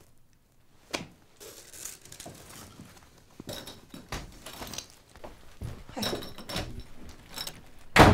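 Rustling and small metallic jingles of things being handled, with a sharp click about a second in, then a door shut hard near the end, the loudest sound.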